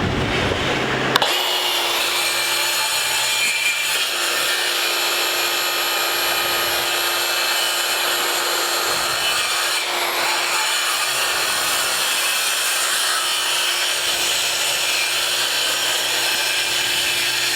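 DeWalt FlexVolt 60-volt brushless track saw cutting through a wooden board, with a steady high whine. The sound changes abruptly with a click about a second in, then holds steady through the cut.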